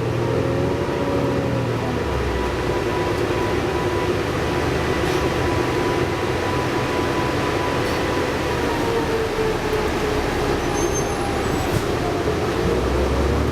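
Interior ride noise of a New Flyer D60LFR articulated bus with a Cummins ISL9 diesel and Allison B500R automatic transmission: steady road and drivetrain noise with a thin, steady whine. The whine slides down in pitch about two-thirds of the way through, and the engine note climbs near the end as the bus pulls harder.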